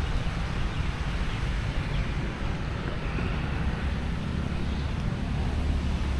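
Wind buffeting the microphone, a steady choppy low rumble, over a general outdoor noise of traffic.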